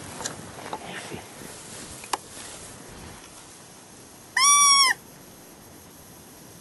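A hand-blown coyote howler call sounding one short loud note that rises and falls, about four seconds in, over steady wind noise. A sharp click comes about two seconds in.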